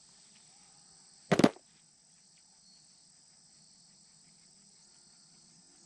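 Steady high chirring of insects, with one brief loud sudden noise about a second and a half in.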